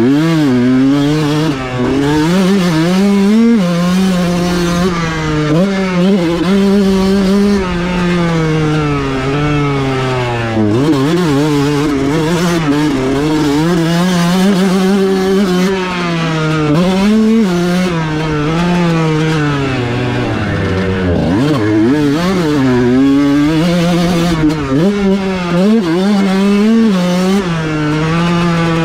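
Kawasaki KX125's single-cylinder two-stroke engine at full throttle, its pitch climbing and falling over and over as the revs rise and drop.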